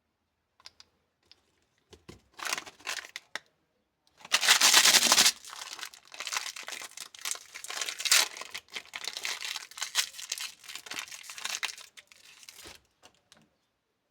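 Candy wrapper being handled and torn open: a few light clicks, then crinkling, a loud ripping stretch about four seconds in lasting about a second, then uneven crinkling that stops about a second before the end.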